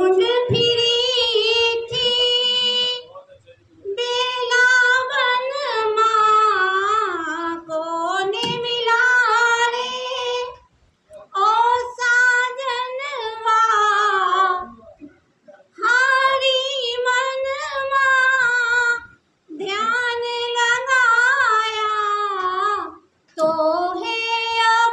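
A woman singing her own Urdu-Hindi love verses solo into a microphone, with no instrumental backing. The song comes in about six long, held, melismatic phrases with short pauses for breath between them.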